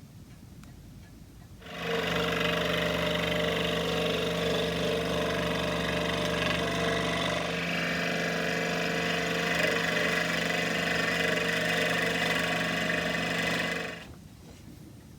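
Rotary carving tool with a coarse burr running steadily, cutting into oak; it starts about two seconds in and stops shortly before the end.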